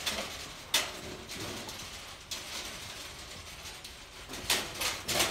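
Metallic clicks and rattles from a stainless-steel dog cage as a Rottweiler moves against its bars: a sharp knock about a second in and another a little after two seconds, then a quick run of clicks near the end.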